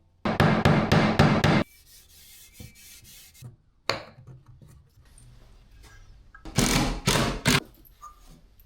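Wood being rasped or sanded by hand in quick back-and-forth strokes: a fast run of strokes lasting about a second and a half at the start, then a quiet stretch with a few small clicks and a knock, and another short run of strokes about two thirds of the way in.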